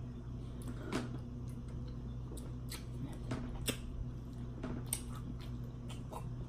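Hands squeezing lime wedges and handling food on a plate: scattered soft clicks and squishes over a steady low hum.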